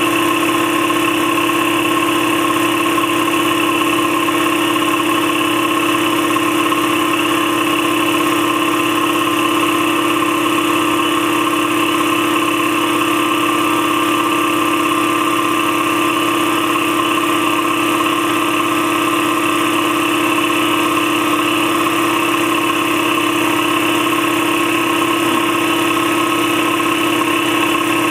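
Campbell Hausfeld 60-gallon air compressor, its 3.2 hp 240-volt electric motor driving a twin-piston pump, running steadily as it pumps up the tank toward its 135 psi shutoff.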